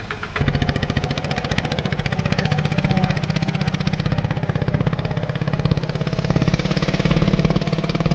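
A three-wheeler tempo's engine running with a rapid, even chugging beat.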